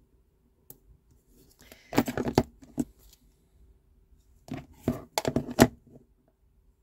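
Plastic ink pad case being handled: crackling and clicking of the plastic as the pad is opened and pressed down onto card stock. It comes in two bouts, about two seconds in and again around five seconds in.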